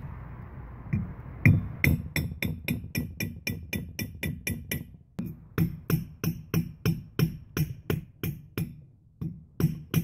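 Short-handled sledge hammer striking a steel bar to knock a PVC pipe form out of a set concrete cast: fast repeated blows, about three or four a second, with a slight ring and a couple of brief pauses.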